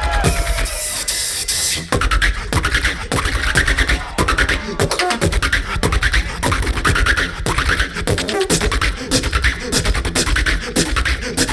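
Beatbox duo performing: a hissing build-up that cuts off about two seconds in, then a fast, dense beat of deep bass kicks and sharp clicking snares.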